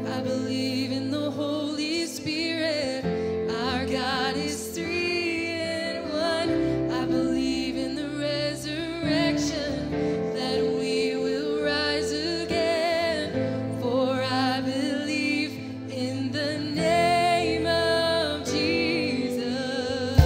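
A woman singing a worship song with vibrato over a live band's held chords.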